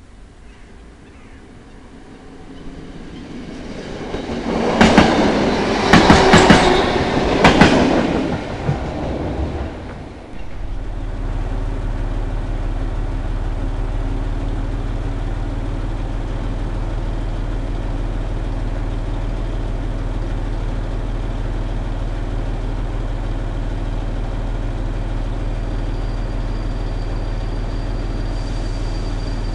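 A Sprinter Lighttrain (SLT) multiple unit passes close by, its wheels clattering over rail joints. The noise builds from about three seconds in, peaks with sharp clicks between about five and eight seconds, and fades. Then the sound changes abruptly to the steady low idle of the D23 diesel locomotive of the Bentheimer Eisenbahn standing alongside, and a faint high whine joins near the end.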